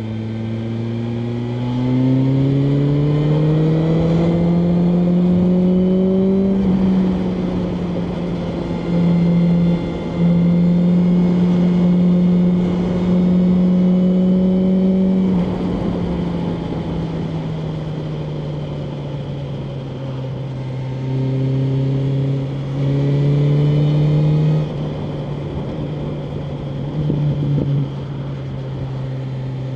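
BMW M1000R Competition's inline-four engine under way: it climbs in revs for the first few seconds, then holds high revs with several louder throttle surges, eases off to a lower steady pitch, and gives a few short bursts of throttle near the end.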